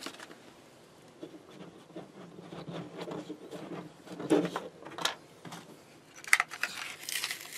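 Hands handling wires and a plastic inline fuse holder, with small clicks and rustles as a blade fuse is pulled out. Near the end comes a short burst of crackling rustle.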